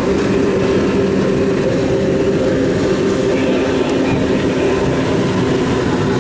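Racing powerboat engines running at speed, a steady drone with no clear rise or fall.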